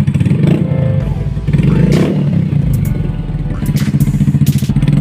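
Yamaha Mio i 125S scooter's single-cylinder engine running through an aftermarket Akrapovič hexatip muffler, giving a deep, rapidly pulsing exhaust note.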